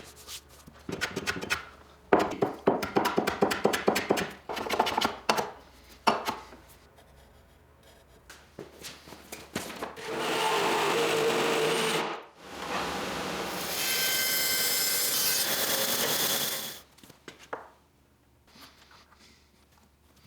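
Woodworking shop sounds: a hand tool scraping wood in quick repeated strokes for about six seconds, then a power tool running steadily in two bursts of two to four seconds, the second with a high whine, followed by a few faint taps.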